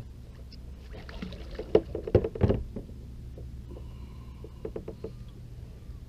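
Knocking and clattering on a kayak as a netted fish is handled in a landing net to free the hook, with a burst of several sharp knocks about two seconds in and a few lighter clicks later; a steady low rumble runs underneath.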